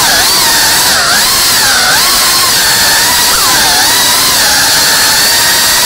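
Small FPV quadcopter's electric motors and propellers whining loudly, the pitch dipping sharply and climbing back several times as the throttle is chopped and punched through flips and turns.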